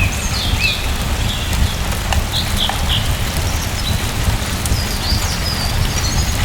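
Steady rain with a low rumble beneath it, and small birds chirping in short, repeated high notes over the top.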